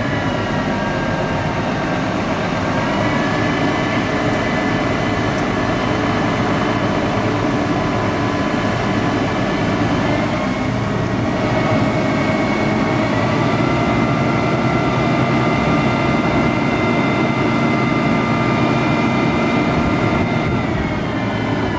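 Scania aerial ladder truck running its hydraulic ladder drive, with a steady engine sound and hydraulic whine as the ladder raises and extends. The whine steps up in pitch about three seconds in and again around eleven to thirteen seconds, then drops near the end.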